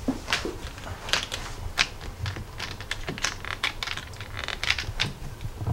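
Irregular sharp clicks and taps of small hard plastic action-figure parts and a clear plastic blister tray being handled and set down on a tabletop.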